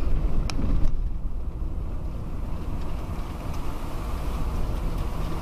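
A vehicle driving on a dirt road, heard from inside: a steady low rumble of engine and tyres on the gravel. Two short knocks come about half a second and a second in.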